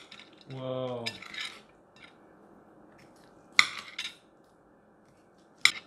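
Sharp clacks of a steamed rock lobster's shell and plate being handled, three knocks against a ceramic plate in the second half, with a short voiced sound near the start.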